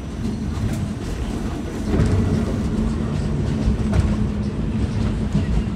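Inside a moving R46 New York subway car: a steady low rumble of the train running on the track, with short clicks of the wheels over rail joints. About two seconds in the rumble grows louder and a steady low hum comes in.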